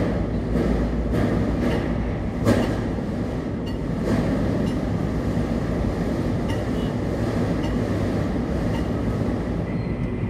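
Steady low mechanical rumble with a constant hum, and a single sharp knock about two and a half seconds in.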